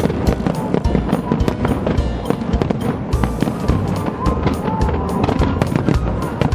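Aerial fireworks bursting in quick succession, many sharp bangs and crackles a second, with music playing alongside.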